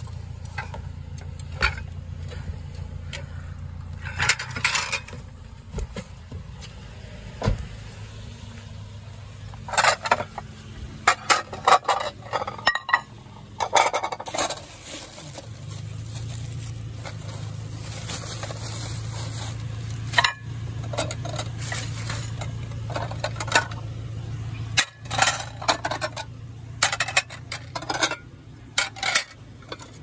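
Ceramic plates clinking and knocking against one another as they are handled and stacked, in irregular clusters of sharp clinks, over a steady low hum.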